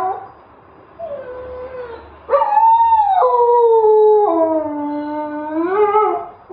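Husky howling: a short, quieter howl about a second in, then a long, loud howl starting just past two seconds whose pitch sinks and then rises near the end before breaking off.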